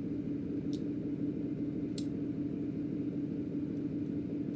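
A steady low hum with one strong held tone, and two brief faint clicks, about one and two seconds in.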